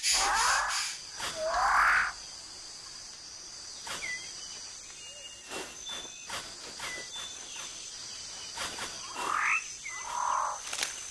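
Rainforest sound: an animal, most likely a bird, gives two harsh rising calls at the start and two more near the end, with a few short chirps between them. A steady high insect drone runs underneath.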